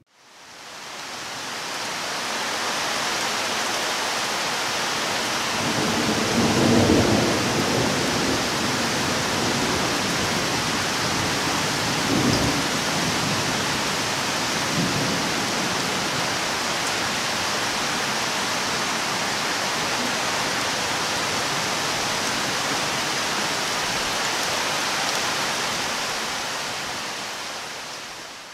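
Steady heavy rain of a thunderstorm, with low rolls of thunder: the loudest about seven seconds in, two smaller ones near twelve and fifteen seconds.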